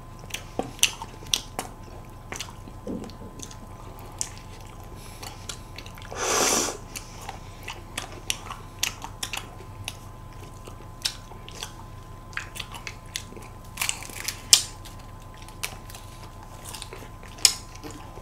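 Close-miked eating of ice cream from a cone and a cup: scattered wet mouth clicks, smacks and bites. About six seconds in there is one louder, longer rush of noise.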